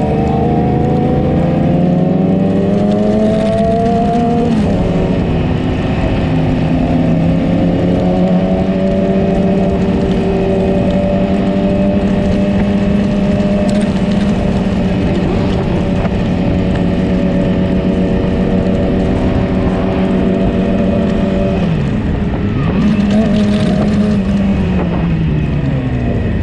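Yamaha R6 sport motorcycle engine under way, its revs climbing for the first few seconds and dropping at a gear change about four and a half seconds in. It then holds a steady cruising note, and near the end the revs fall, rise and fall again.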